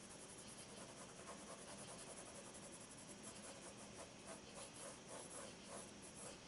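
Soft 8B graphite pencil shading on sketchpad paper: faint, quick scratching strokes that are clearer in the second half.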